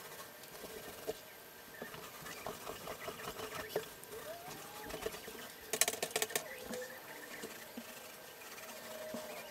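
A paint roller rolling wet paint onto a wall, faint, with scattered clicks. About six seconds in comes a short burst of rapid, sharper clicks, the loudest part.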